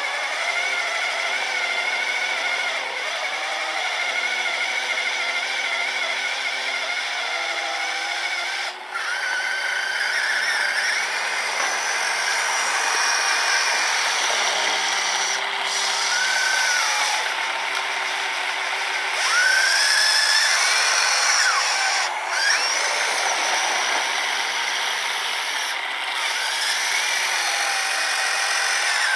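Electric motors and gearing of a 3D-printed RC snowblower and its RC truck running with a steady high whine. Several pitches slide up and down as the throttle changes, and there is a brief dip about nine seconds in.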